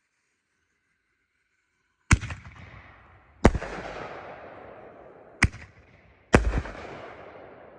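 Aerial firework shells going off: four loud bangs in about four seconds, each trailing off over a second or so.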